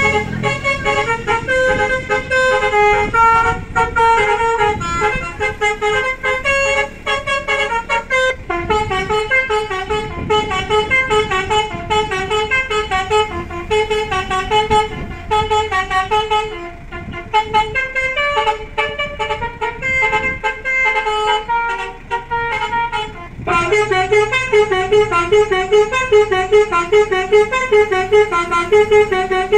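A 500-watt electric basuri horn, a multi-trumpet melody horn, playing a tune as a quick run of short horn notes stepping up and down in pitch. It gets louder for the last several seconds.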